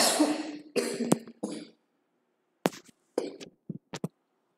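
A woman coughing: one loud cough right at the start, then a few shorter coughs and throat-clearing sounds over the next few seconds.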